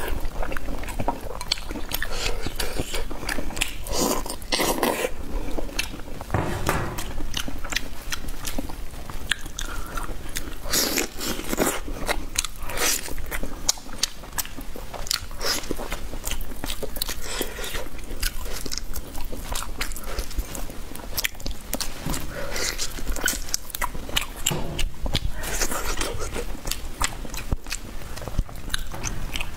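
Close-miked eating: a person biting and chewing, with a dense, irregular run of sharp clicks, crunches and wet mouth sounds.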